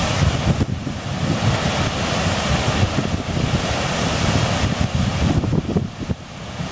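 Water pouring over a dam spillway in a steady rush, with wind buffeting the microphone.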